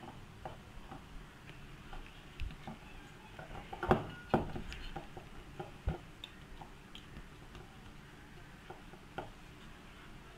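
A hand pressing and kneading soft dough in an enamel bowl: faint squishes and scattered light taps, with a few sharper knocks about four and six seconds in.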